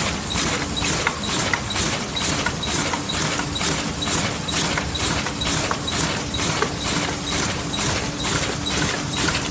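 Automatic bottle-cap packaging machine running in an even rhythm of about three strokes a second, with a steady hum underneath.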